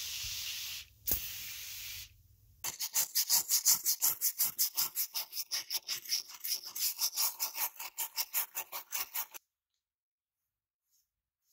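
Two short hisses of spray, then fast, even scrubbing of the foam-covered body of a scale-model Porsche 356B, about six strokes a second, that stops suddenly near the end.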